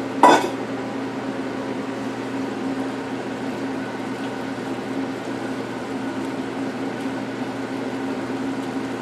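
Steady mechanical hum of a motor, with a few fixed tones over an even hiss, unchanging throughout.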